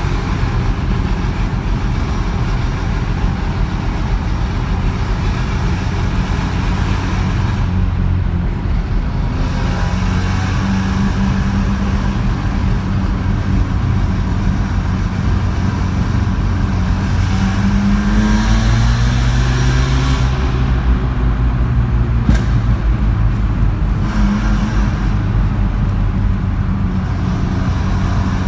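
Ported Mazda 13B rotary engine on a Weber 48 carburettor, breathing through headers and a one-off muffler with an inner silencer, running on the move. The revs climb and then fall a little past the middle, and one sharp afterfire pop comes about two-thirds of the way through.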